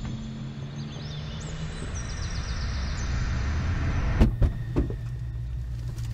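Outdoor ambience with high chirps and a hiss that slowly swells, then, about four seconds in, the inside of a parked minivan: a steady low hum with a few sharp knocks.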